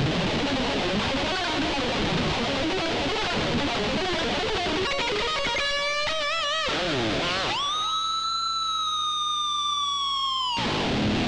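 Electric guitar through an amplifier: fast, dense palm-muted riffing, then a single note with wide vibrato. After a swooping dip in pitch comes a long held high note that sags slightly and cuts off abruptly near the end, followed by another quick dip and rise in pitch.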